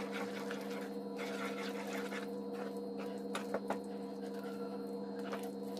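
A spatula stirring flour into a thick, wet mashed bottle-gourd mixture in a metal kadai, giving soft squelches and frequent small scrapes and clicks against the pan. A steady low hum runs underneath.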